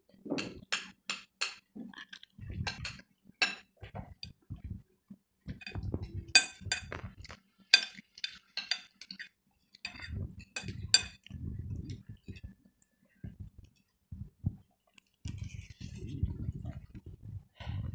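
Metal cutlery clinking against plates while people eat: many separate sharp clinks in clusters, with duller low knocks between them.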